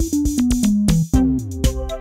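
Electronic background music: a drum-machine beat with a synth line stepping down in pitch, then sliding downward.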